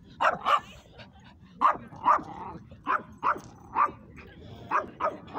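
Small fluffy dog barking repeatedly: about nine short barks, mostly in quick pairs about a third of a second apart.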